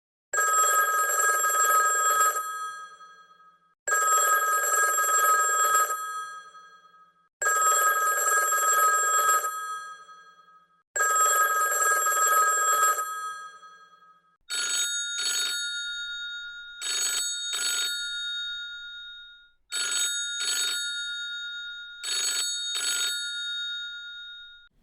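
Vintage telephones ringing. First comes one phone with four long rings about two seconds each. At about 14 seconds a different phone takes over, ringing in short double bursts, four pairs.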